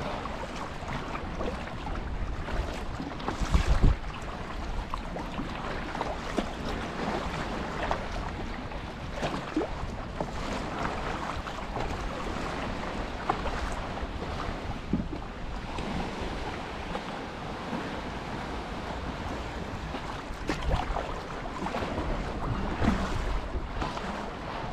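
Sea water lapping and splashing against a kayak as it is paddled along, with wind buffeting the microphone and a strong gust about four seconds in.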